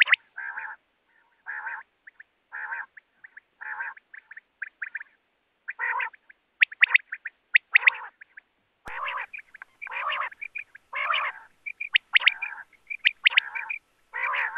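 Common quail calling: several quick groups of sharp, high notes, usually three to a group, alternating with harsher rasping calls.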